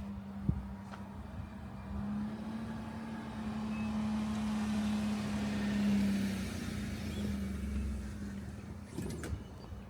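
A motor vehicle running with a steady low hum, the sound swelling to a peak about six seconds in and then easing off.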